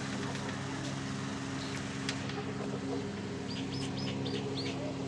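A steady low mechanical hum, with a quick run of about six short, high bird chirps about three and a half seconds in.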